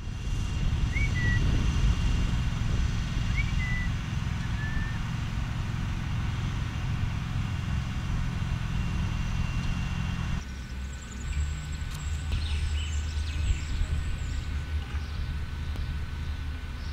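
Low steady rumble of a Luzern–Stans–Engelberg electric railcar train running, with a bird chirping a few times in the first five seconds. About ten seconds in the sound changes abruptly to another steady rumble with a faint steady whine and a few brief high squeals.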